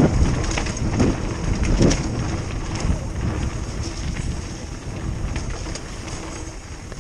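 Wind buffeting a helmet-mounted camera's microphone as a mountain bike descends a dirt trail at speed. Tyre rumble and scattered rattles and clicks come from the bike over bumps. The rush is loudest in the first couple of seconds and eases off toward the end.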